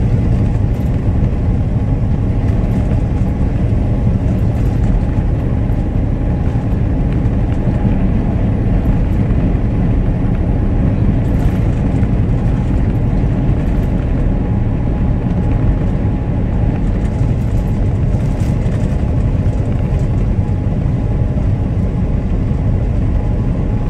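Steady low rumble inside a semi truck's cab at road speed: engine drone mixed with tire and road noise.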